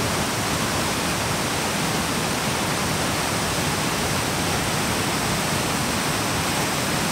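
Fast whitewater creek cascading over boulders: a steady, loud rush of water.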